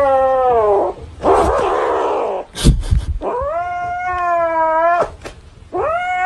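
Kitten yowling in long, drawn-out meows, about four calls, each lasting a second or more, one of them rougher and harsher, with a short knock in the middle. The kitten is protesting as a hand reaches for the plush toy it is clutching.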